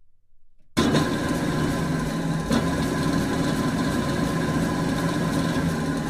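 A large drill press running steadily, its motor humming under a broad mechanical whirr; it cuts in suddenly a little under a second in after near silence, with a sharp click about two and a half seconds in.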